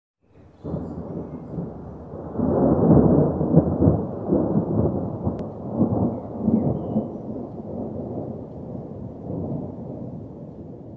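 Rolling thunder: a long, low rumble that builds about two seconds in, is loudest for the next couple of seconds, then slowly dies away.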